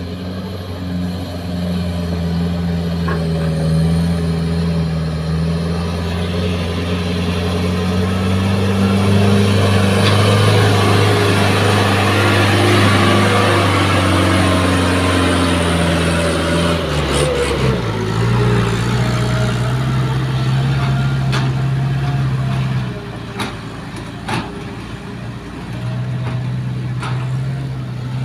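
Diesel engine of a light dump truck running as it drives slowly over rough dirt past close by, swelling to its loudest about halfway through and then easing to a steadier, lower run, with a few light knocks in the second half.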